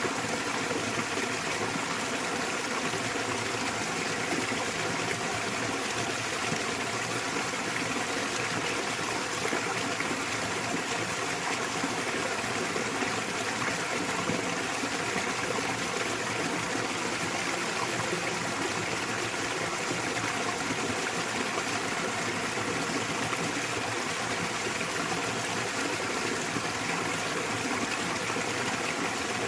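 Small waterfall pouring steadily into a mountain stream, an even rush of water with no breaks.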